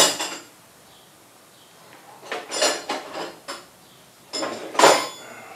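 Metal hand tools clanking and clinking as they are handled and set down, as in rummaging for a wrench. It comes in separate bursts: a sharp clank at the start, a cluster of clinks about two to three and a half seconds in, and a ringing clank near the end.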